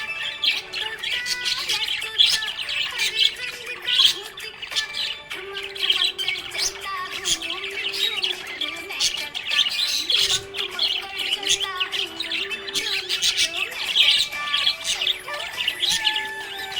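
Budgerigars chirping in a rapid, continuous stream of high chirps over background music with a slow melody.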